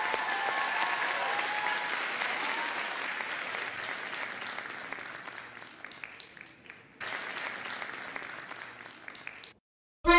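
Television studio audience applauding, with a few voices over it at first. The applause fades, comes back louder after an edit about seven seconds in, then cuts off abruptly.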